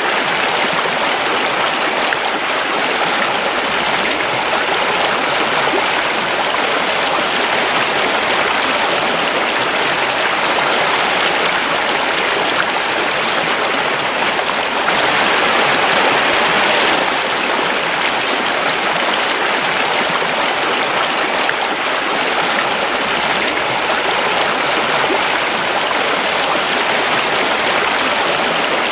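Forest river flowing over rocks: a steady, loud rush of water, swelling slightly for a couple of seconds midway.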